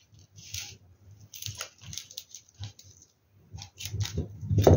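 Light clicks and rustles of small glass mosaic diamonds being handled and pulled off adhesive tape on a plastic tray. A louder short sound comes just before the end.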